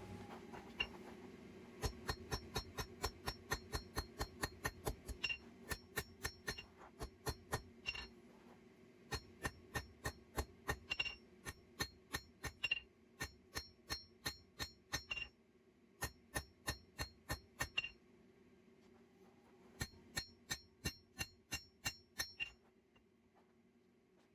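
Hand hammer striking hot steel on the anvil in runs of about three blows a second, each with a bright ringing clink, broken by short pauses, while the seax's tang is drawn out and tapered. A steady low hum runs underneath.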